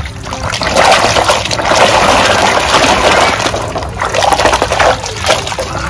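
A plastic toy gun plunged into a basin of soapy water with a splash right at the start, then scrubbed by hand and sloshed around in the water and foam, in uneven swishes.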